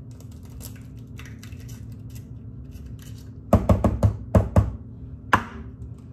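Eggs tapped and cracked against the rim of a plastic mixing bowl: a quick run of about six sharp knocks a little past halfway, then one more about a second later.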